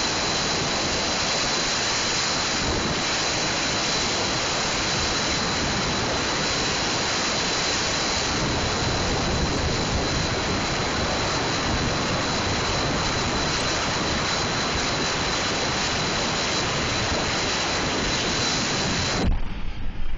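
Steady roar of road and wind noise from a vehicle driving at speed, with a faint high whine. It cuts off abruptly about a second before the end, leaving quieter, uneven noise.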